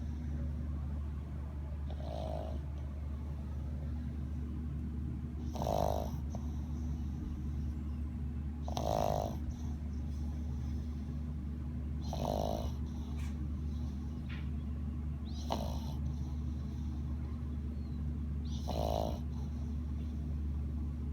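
Snoring in a steady rhythm, one snore about every three seconds, six in all, over a steady low hum.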